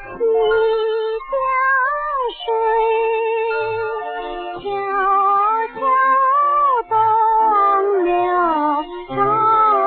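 A woman singing a 1950s Chinese popular song in short phrases with a wavering vibrato. It is an old recording with no treble above about 4 kHz.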